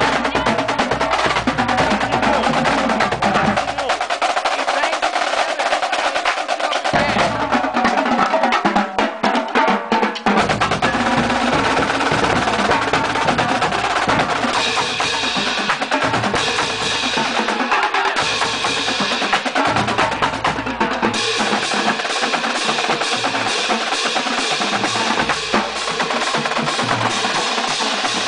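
Marching drumline playing: snare drums rattling out rapid rolls and patterns, hand-held crash cymbals clashing and ringing, and a low drum part underneath. The low drums drop out briefly about four and about nine seconds in, and the cymbals ring out more strongly from about halfway through.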